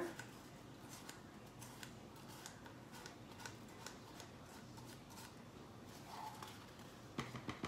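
Faint, irregular light clicks and scrapes of a small spoon against plastic cups and a container as mica powder is tipped and scraped into soap batter.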